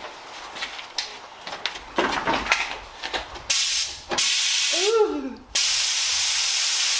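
Light clicks and rubbing of work on the car, then three bursts of loud hissing spray about three and a half seconds in, the last one the longest. Between the second and third bursts there is a short tone that slides up and down.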